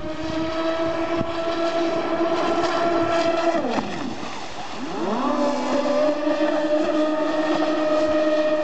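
Twin brushless electric motors of a large RC speedboat running at speed, a steady high whine with water hiss from the hull. About four seconds in the whine dips and swoops in pitch, then climbs back and holds steady at a slightly lower pitch.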